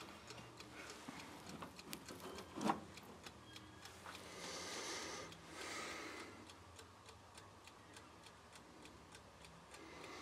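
Mechanical timer ticking steadily, with one louder knock about two and a half seconds in and a couple of brief rustles near the middle.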